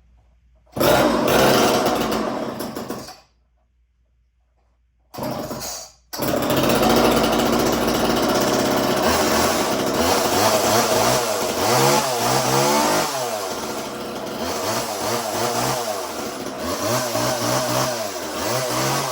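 Old Homelite two-stroke chainsaw starting: it fires and runs for about two seconds before dying, catches again briefly and stops, then starts and keeps running, revved up and down several times.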